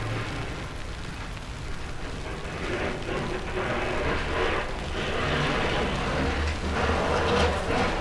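Rumbling city street noise with a steady hiss, growing louder from about three seconds in.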